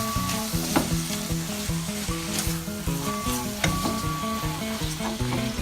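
Chicken, bell pepper and onions sizzling in a frying pan as they are stirred, with a few utensil clicks against the pan. Background music with a stepping melody plays underneath.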